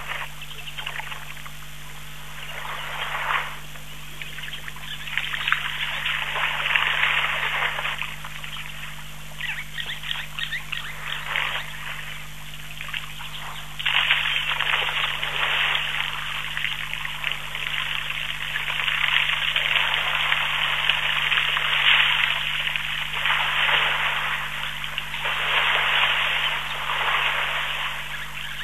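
African elephant bulls wading and drinking in a waterhole: water sloshing, pouring and splashing in uneven swells. A faint steady low hum runs underneath.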